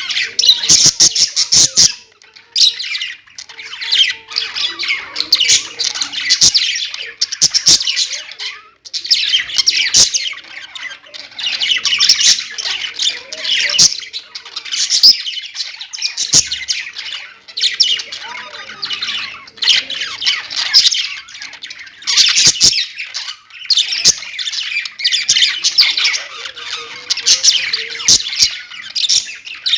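Pet budgerigars chattering and chirping nonstop, a dense warble broken by sharp squawks, with brief lulls a couple of times.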